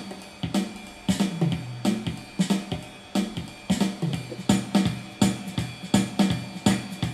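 Yamaha PSR-350 keyboard playing one of its built-in jazz accompaniment styles: a programmed drum kit keeping a steady beat over a walking bass line and guitar chords.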